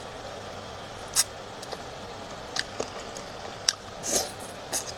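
Close-miked eating: scattered wet mouth clicks and smacks of chewing, about six in five seconds, over a steady hiss.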